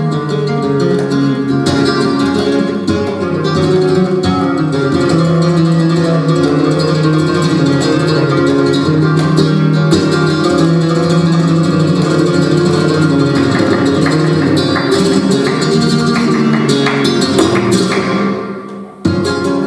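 Flamenco guitar playing in the tangos rhythm, with no singing. It breaks off briefly near the end and then starts again.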